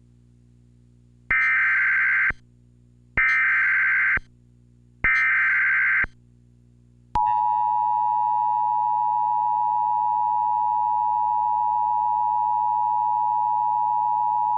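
Emergency Alert System SAME header: three one-second bursts of screeching digital data tones, then, about a second later, the steady two-tone EAS attention signal (853 and 960 Hz), announcing a severe thunderstorm warning.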